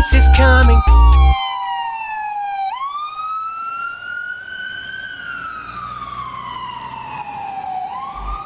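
A song's beat stops about a second in, leaving a siren wailing alone, its pitch sliding slowly down, sweeping up, then falling and starting to rise again.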